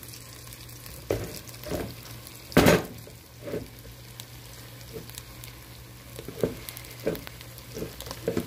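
Wooden spoon stirring and pressing boiled potatoes in a pot over a gas flame, the potatoes sizzling in melted margarine and oil. Irregular scrapes and knocks of the spoon against the pot sound through it, the loudest about a third of the way in.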